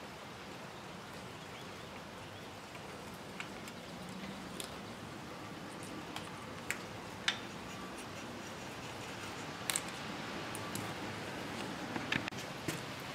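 Scattered small clicks and ticks of hand work on a plastic recoil starter: pliers tugging a thin wire that draws a new starter rope through the housing. The clicks come irregularly, a few seconds apart, over a steady faint hiss.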